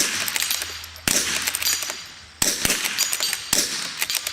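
Rifle shots from two shooters firing at a steel dueling tree, about half a dozen irregular shots roughly half a second to a second apart. Some are followed by a thin high ring as a steel paddle is hit.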